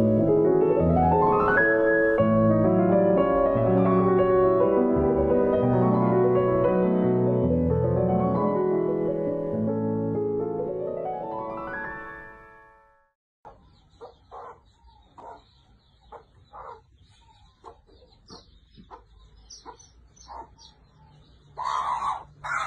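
Piano music with flowing chords and fast rising arpeggio runs, fading out about twelve seconds in. After that come scattered faint short sounds, with a louder cluster near the end.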